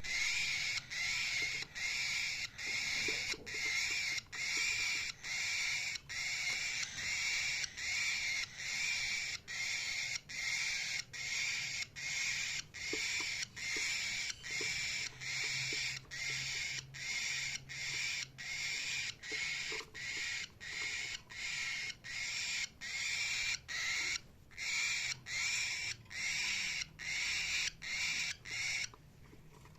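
Cockatiel chirping: a long, even run of harsh repeated calls, each about half a second long, coming roughly one and a half times a second, which stops shortly before the end.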